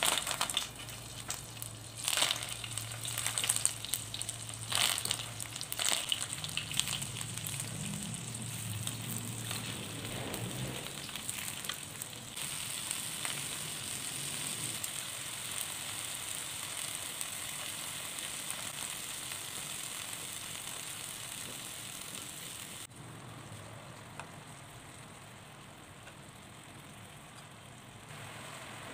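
Chicken rolls wrapped in betel leaves frying in shallow oil in a nonstick pan, giving a continuous sizzle. Sharper, louder bursts come through the first dozen seconds, then it settles into a steady hiss that drops quieter after about 23 seconds.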